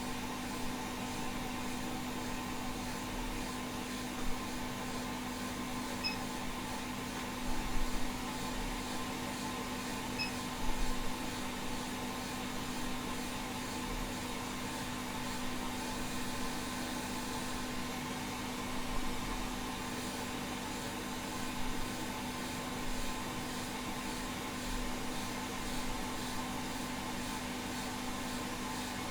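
Hot air rework station blowing steadily at 60% airflow, a steady hiss with a hum, heating the underside of a hard drive circuit board to melt the solder on its SATA connector. A few soft bumps now and then.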